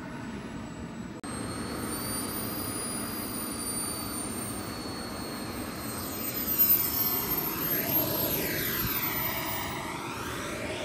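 Radio-controlled model jet flying low past along the runway: a steady high whine that swells and sweeps as the plane goes by, loudest about seven seconds in.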